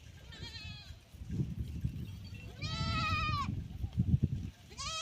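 Goats bleating: a faint quavering bleat near the start and a louder, longer one midway, with another beginning at the very end, over low rustling and knocking.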